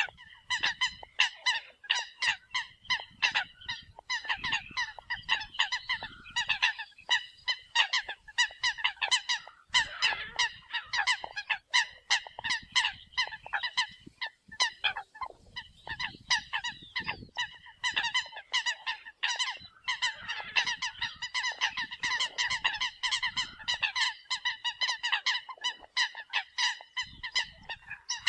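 Eurasian coots calling: a fast, unbroken run of short, pitched calls, several a second. This is a decoy recording played to lure coots.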